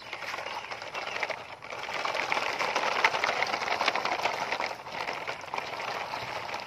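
Plastic toy dump trucks' wheels rolling through wet gravel and mud, a dense crunching rattle that builds to its loudest in the middle and eases toward the end.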